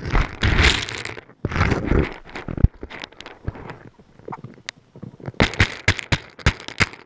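Chickens pecking and scratching at feed right against the camera: rustling, scraping and crunching up close, with a quick run of sharp pecking taps near the end.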